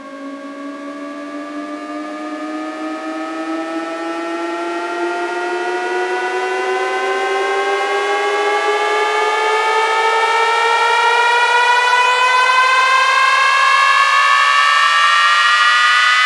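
Electronic sweep tone on a sound-check track: several pitched tones glide slowly and steadily upward in pitch while growing louder.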